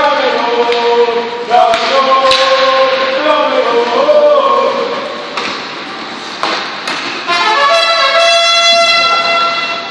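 Hockey spectators chanting and singing together, with sharp clacks of sticks and puck on the ice. Near the end a single horn-like tone is held for about two seconds.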